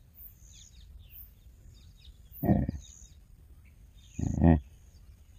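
Wild boar grunting: two short, low calls about two seconds apart, over faint scattered bird chirps.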